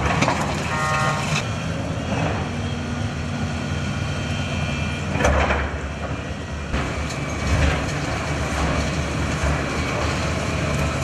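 Demolition excavator's diesel engine running, working harder from about five seconds in, with loud crashes near the start, at about five seconds and again two seconds later.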